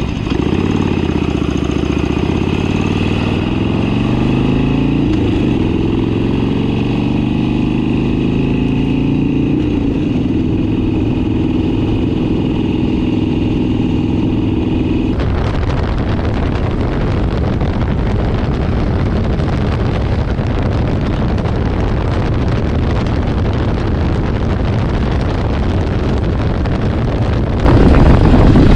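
An Evo engine running. Its pitch dips, climbs over several seconds and then holds steady. About halfway through, the sound turns to a rough, noisy rush, which grows louder near the end.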